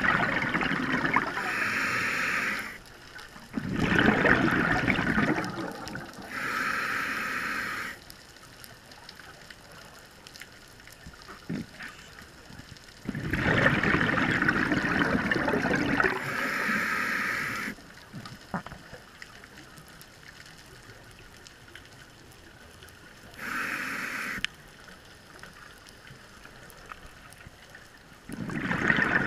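Scuba diver breathing underwater through a regulator. Bursts of exhaled bubbles alternate with the hiss of the regulator on each inhale, about four breaths with quiet pauses between them.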